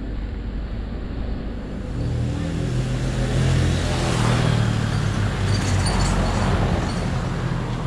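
Motor vehicle engine running at road speed, getting louder about two seconds in, with a haze of road and wind noise.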